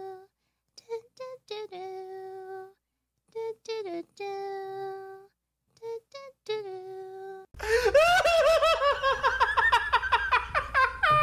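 A voice humming a short phrase that ends on a long held note, three times over with pauses between. After about seven seconds a louder voice-like sound takes over, warbling quickly up and down in pitch.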